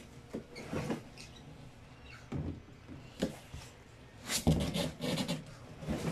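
Cardboard box and its packing being handled while it is unpacked: scattered scrapes, knocks and rustles, with a louder spell of rustling about four and a half seconds in.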